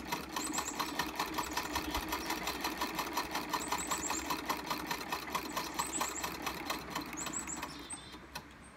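1902 Singer 27-4 Sphinx treadle sewing machine stitching through two layers of denim at its longest stitch length: a steady, rapid, even clatter of the needle and mechanism that slows and stops near the end. Birds chirp briefly several times in the background.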